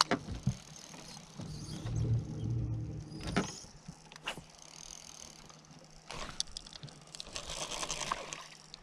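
Spinning fishing reel being cranked on a retrieve, its handle squeaking, with a few sharp clicks and a stretch of fast scratchy ticking near the end.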